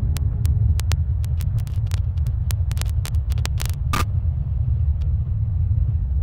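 Steady low rumble, with a quick run of sharp clicks over the first four seconds; the last click, about four seconds in, is longer.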